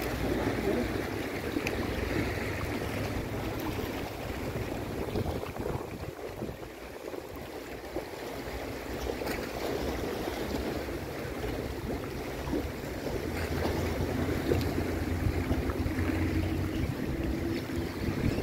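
Wind buffeting the microphone over small sea waves washing against shore rocks, with a faint steady low hum coming in for the last few seconds.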